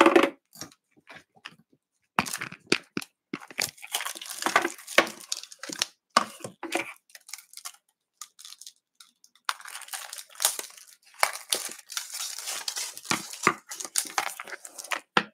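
Plastic wrap being torn and peeled off a wooden puzzle board, crinkling and crackling irregularly, with a pause of about a second and a half just past the middle.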